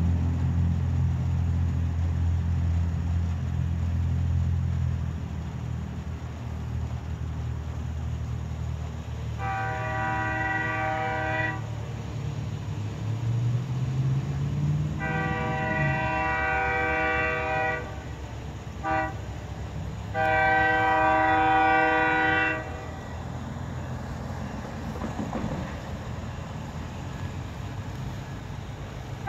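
Diesel locomotive's multi-tone air horn sounding the grade-crossing signal as the train approaches: long, long, short, long. A low rumble is heard in the first few seconds and then fades.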